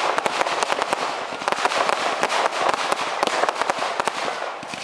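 Fireworks crackling: a dense, continuous run of rapid sharp cracks and pops, with a few louder bangs among them.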